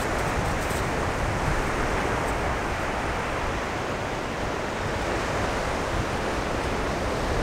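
Ocean surf washing onto the beach, with wind: a steady rush of noise.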